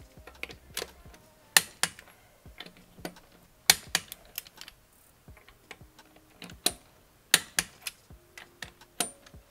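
Click-type torque wrench on a wheel's lug nuts: a series of sharp metallic clicks, several in quick pairs, with faint ticks between. Each click marks a nut reaching the set torque.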